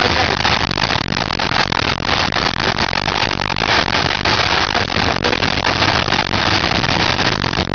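Moving train: a steady rush of wind and running noise with irregular rail knocks and clatter.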